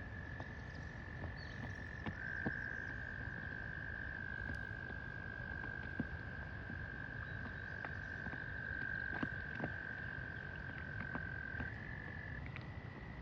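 Frogs trilling: one continuous high trill held on a near-steady pitch, shifting slightly as overlapping calls take over, with scattered faint clicks.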